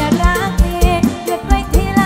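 Live mor lam sing (Isan folk-pop) music: a woman sings a sliding, ornamented vocal line over a band, with a steady kick-drum beat.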